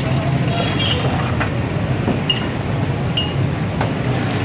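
About five sharp metallic clinks, each with a short ring, as a steel ladle knocks against the rim of a large metal pot of mango juice, over a steady hum of street traffic.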